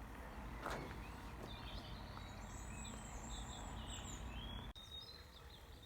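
Birds chirping faintly over a low, steady background rumble; the chirps begin about a second in and run on to near the end.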